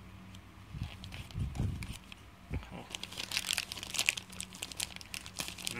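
Thin clear plastic packet crinkling and crackling as it is cut open with scissors and handled, in irregular bursts that grow busier about three seconds in.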